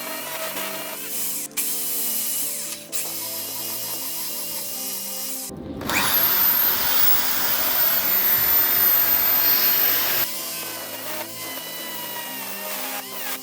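A high-speed die grinder spins up with a fast-rising whine about six seconds in, holds a very high steady pitch while grinding slots into a steel shaft for about four seconds, then cuts off suddenly. Background music plays before and after.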